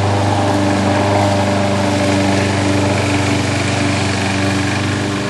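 Petrol lawn mower engine running steadily at one pitch while mowing.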